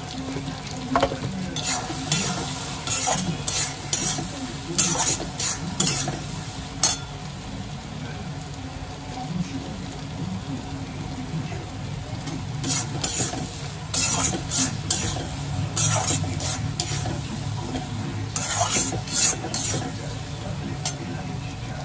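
Chicken frying in a pan with spice paste, sizzling steadily while a spoon stirs and scrapes it against the pan in two spells of quick clattering strokes, with a quieter stretch between them.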